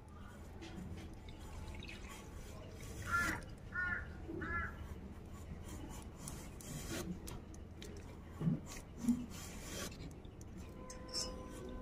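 Bottle gourd rind being peeled against the metal blade of a boti, a soft repeated rubbing scrape. Three short high chirps sound about three seconds in, and two soft low thuds come near the end.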